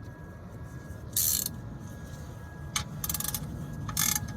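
Ratchet wrench clicking in a few short strokes, snugging up a fastener during an oil change; the fastest run of clicks comes about three seconds in.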